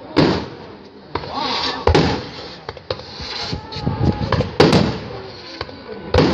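Aerial fireworks shells bursting: about four loud bangs a second or two apart, the loudest about two-thirds of the way through, with crackling between them.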